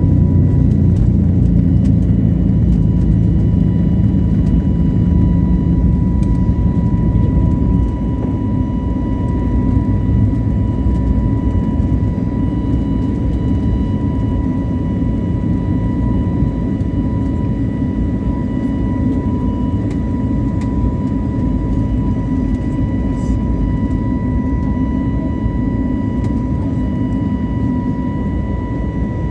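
Airliner jet engines running at high power, a loud steady rumble with a constant high whine over it. The deepest rumble eases a little about eight seconds in.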